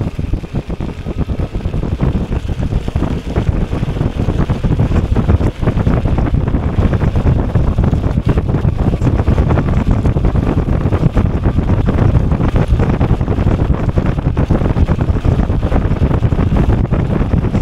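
Heavy wind buffeting on the microphone from riding an electric bike fast along a paved trail, a dense rumbling rush that grows louder in the first few seconds as the bike picks up speed.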